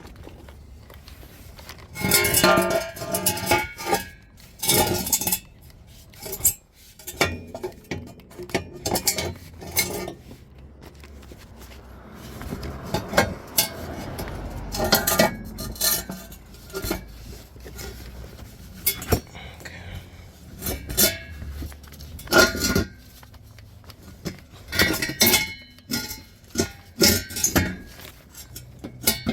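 Irregular metallic clanks and clinks, in scattered bunches with short pauses between, as the catalytic converter and exhaust parts are worked loose and tools are handled.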